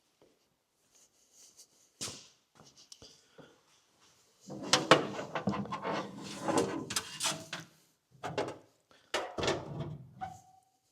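Wiring loom being handled and fed through a bulkhead grommet: a knock, then a stretch of rubbing, rustling and clicking as the harness slides through, with a few more scrapes and a short squeak near the end.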